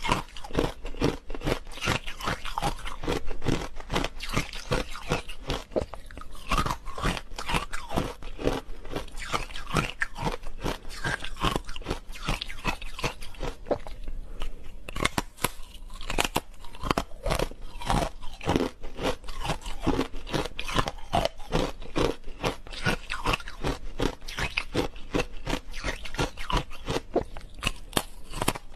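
Frozen matcha green tea ice being bitten and chewed: a dense run of crisp crunching and crackling, easing briefly about halfway through.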